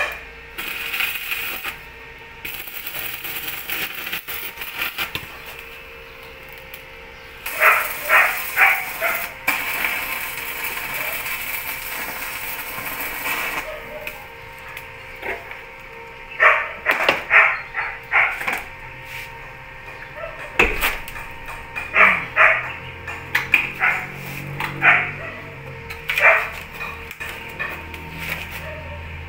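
A dog barking in three bouts of quick barks, the longest near the end.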